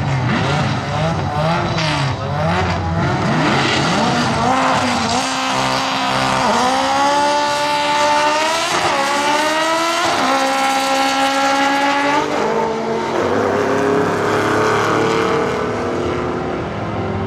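Drag-racing car engines revving at the starting line, then launching hard. A rising engine pitch is broken by three quick upshifts as a car accelerates away down the strip, giving way to a steadier, lower engine sound for the last few seconds.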